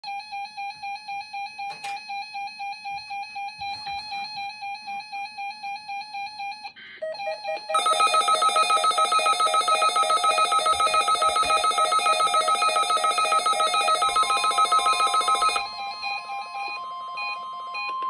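Several NOAA weather radio receivers sounding their electronic alert beeps for a Required Weekly Test. A single rapidly pulsing beep plays first. From about 8 s in, more receivers join, louder, in overlapping beeps that stop near 16 s. A steady higher tone begins shortly before they stop and continues.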